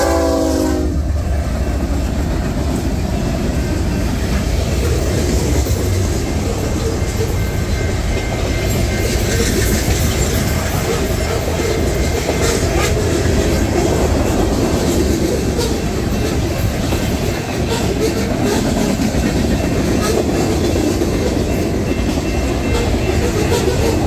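A train's air horn cuts off about a second in, then the train runs past at speed, its wheels and cars rumbling and clattering steadily over the rails.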